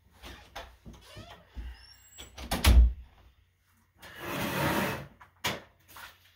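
Knocks, creaks and a loud thump from someone moving about a small room, then about a second of rustling and a sharp knock as things are handled close to the microphone.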